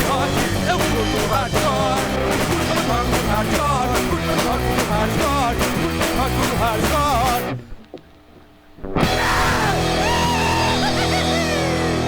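Punk rock music with drums and distorted electric guitar. About seven and a half seconds in it cuts out for about a second and a half, then comes back as guitar with bending notes.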